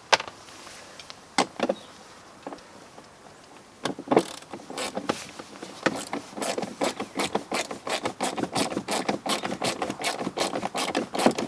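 Socket ratchet wrench driving a bolt home: a few separate clicks, then from about six seconds in a fast, even run of ratchet clicks, about four or five a second.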